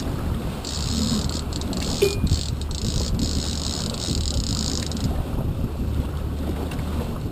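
Boat engine running steadily at sea under wind rumbling on the microphone and water washing at the hull. A high hiss comes in about half a second in and stops about five seconds in, with a few short breaks.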